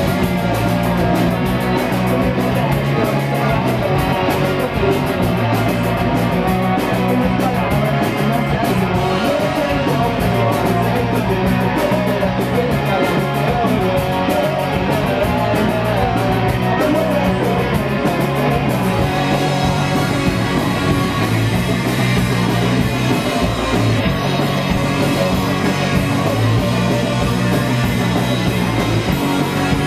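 Rock band playing: electric guitars, electric bass and drums. A fast even ticking up high gives way to a steadier wash about two-thirds of the way through.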